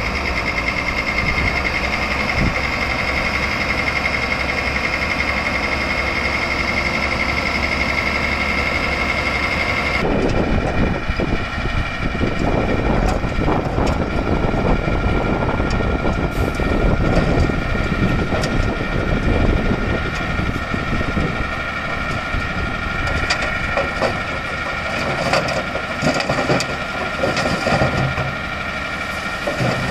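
Tipper truck's diesel engine idling steadily. About a third of the way in the sound changes to the engine running for the hydraulic tipper while the raised bed dumps its load of soil, with a rough rumble and scattered clicks of earth and stones sliding out.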